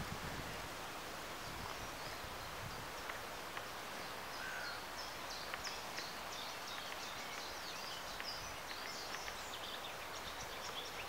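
Small birds chirping in quick, high calls over a steady background hiss, the chirps growing frequent from about four seconds in.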